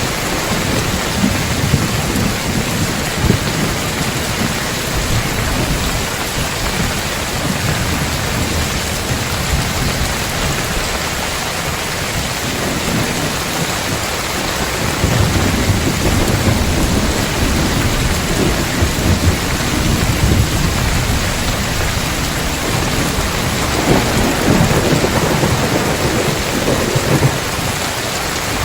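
Heavy rain pattering steadily on a tile roof, with thunder rumbling low in the background and swelling twice in the second half.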